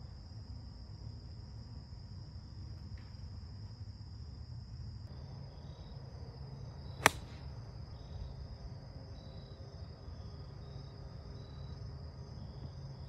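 A golf club strikes the ball off the fairway turf once, about seven seconds in: a single sharp, crisp click. Under it runs a steady high-pitched chirring of insects, with intermittent higher chirps.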